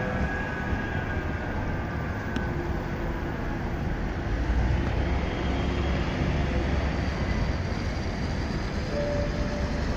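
Manchester Metrolink tram passing at close range: a steady rumble of its wheels and motors, mixed with bus and street traffic noise.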